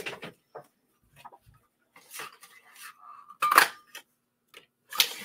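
Cardstock and craft tools handled on a desk: small clicks and paper rustles, then a brief squeak and a sharp snap about three and a half seconds in, a Stampin' Up Label Me Lovely hand punch cutting a label shape from white cardstock. Another sharp click comes near the end.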